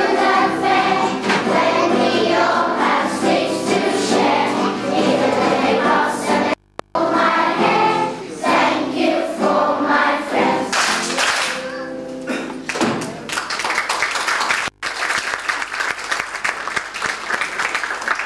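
A children's choir singing together; the song ends about two-thirds of the way through and gives way to clapping. The sound drops out briefly twice.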